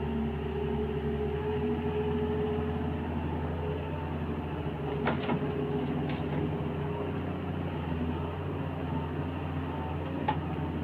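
Doosan 140 wheeled excavator's diesel engine running steadily as it digs and swings to load soil into a tractor trolley, with a few sharp knocks about halfway through and one more near the end.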